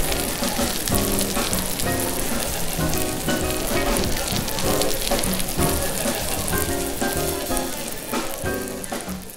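Background music of short, repeated notes over a steady crackling sizzle like food frying, fading out near the end.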